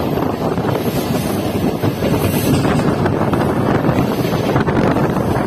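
Wind buffeting a microphone held out of the window of a moving electric multiple-unit local train, over the steady rumble of the train running on the track.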